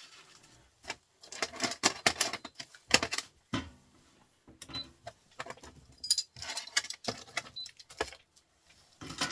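Small pieces of metal scrap from stripped printer motors clinking and rattling as they are handled, in irregular bursts of sharp clicks.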